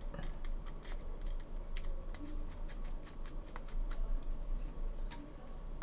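A hex screwdriver tightening small screws into a carbon-fibre drone frame: a scatter of light clicks and ticks as the driver and screws turn against the plate.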